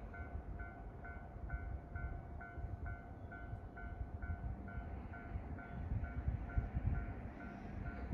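A 113-series train standing at a station platform with a low rumble and a steady whine, over an electronic two-tone signal beeping evenly about two and a half times a second.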